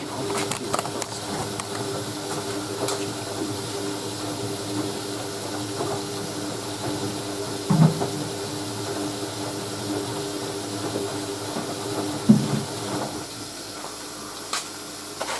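Hoover A3060 Electronic 1100 washing machine in its rinse, water hissing into the drum over a steady hum that stops about thirteen seconds in. Two short knocks from the machine come a little before and after the twelve-second mark.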